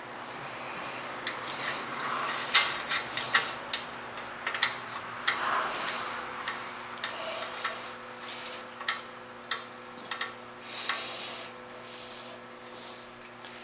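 Irregular metallic clicks and clunks of hand assembly: a carriage bolt and wing knob being fitted and tightened on a steel bracket of a riding mower's bagger, over a faint steady hum.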